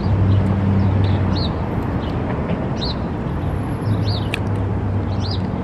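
Steady street traffic noise with a low engine hum, and a bird chirping briefly about four times.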